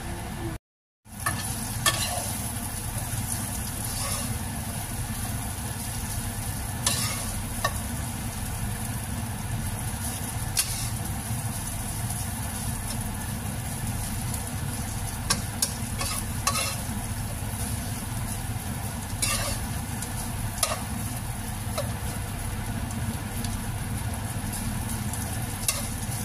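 Chicken intestines sizzling steadily as they fry dry in a little oil in a nonstick wok, while a slotted spatula stirs and scrapes them, clicking against the pan every few seconds. The liquid has all but boiled off, leaving the pieces to brown. The sound cuts out for a moment about a second in.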